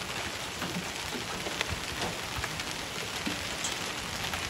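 Hail mixed with heavy rain falling on a street: a steady, dense patter with many small, sharp ticks scattered through it.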